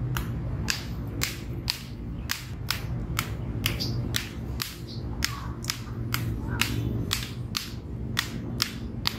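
Arnis sticks clacking together in a steady sumbrada flow drill: two men trade strikes and blocks, about two to three sharp stick-on-stick hits a second. A steady low hum runs underneath.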